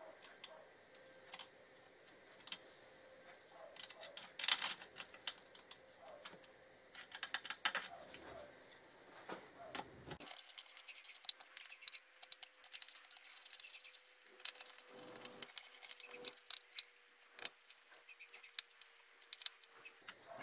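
Light, irregular metallic clicks and clinks as a bracket is set on a motorcycle engine's crankcase and screwed down by hand with a screwdriver.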